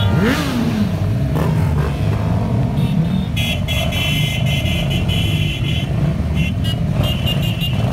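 Motorcycle engines running in a steady low rumble as the bikes set off, with one engine revving up and back down just after the start. A horn sounds for about two seconds in the middle and again briefly near the end.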